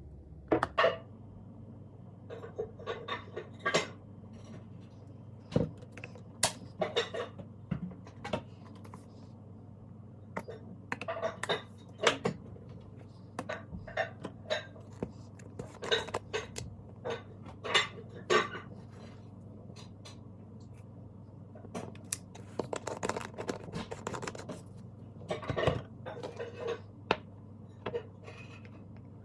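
Kitchen utensils clinking and scraping against dishes and cookware in irregular clusters of short knocks.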